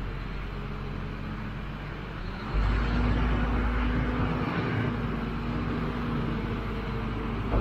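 Silage dump truck's diesel engine running, then about two and a half seconds in it speeds up and holds a steady higher pitch as the hydraulic hoist raises the box, with the rush of chopped silage sliding out onto the pile.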